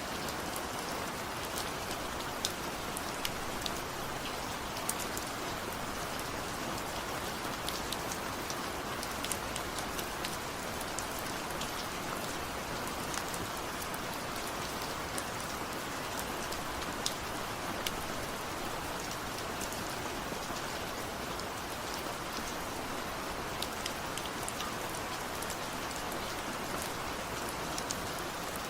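Steady rain falling, a constant even hiss with many scattered sharp drop ticks on a hard surface.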